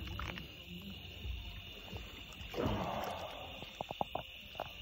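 Handling sounds as a freshly caught channel catfish is unhooked: a brief rustle a little past halfway, then a few sharp clicks near the end. Underneath is a steady high-pitched drone of night insects.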